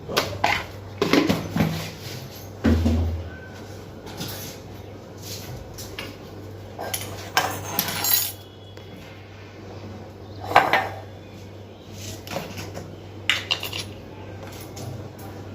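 Dishes and utensils clattering: irregular clinks and knocks, some with a brief ring, over a steady low hum.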